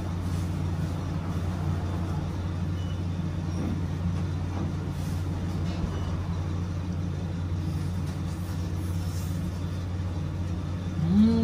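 Steady low machine hum in a small ramen shop, with faint soft sounds of noodles being eaten. Near the end comes a short rising vocal hum.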